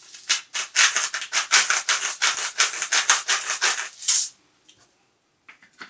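Hand salt grinder being twisted, its mechanism crunching salt in quick, even strokes, about five a second, stopping about four seconds in.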